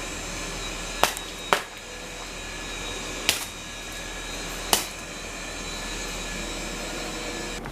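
Steady mechanical whirring with a low hum underneath, broken by four short, sharp clicks.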